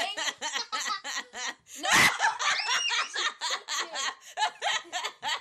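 A person laughing hard in rapid, repeated bursts, with a louder outburst about two seconds in.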